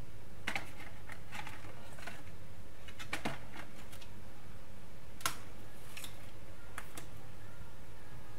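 Scattered light clicks and taps of small hard objects being handled at a workbench, about a dozen at irregular intervals, the sharpest a little past halfway, over a steady low hum.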